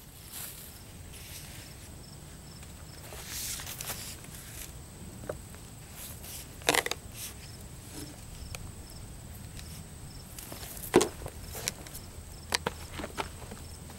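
Several sharp knocks of an axe worked into the split in an oak round, the loudest about eleven seconds in, with a cluster of quicker knocks near the end.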